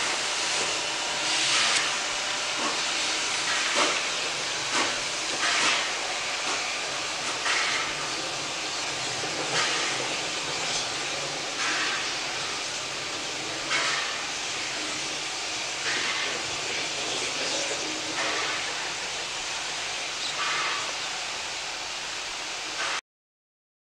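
Victorian Railways R-class 4-6-4 steam locomotive R766 moving slowly, with a steady hiss of steam from its open cylinder drain cocks and slow, uneven exhaust chuffs every second or two. The sound stops abruptly near the end.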